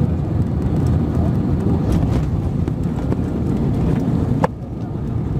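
Airbus A320 cabin during the landing roll: a steady heavy rumble of the engines and the wheels on the runway, heard from a seat over the wing. About four and a half seconds in there is a single sharp click, and the rumble is a little quieter after it.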